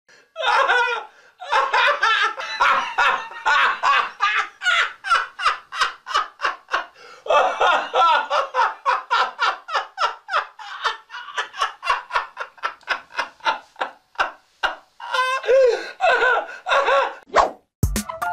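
A person laughing hard in long runs of quick, rhythmic ha-ha pulses, about four a second, breaking off briefly a few times. Music with a beat comes in right at the end.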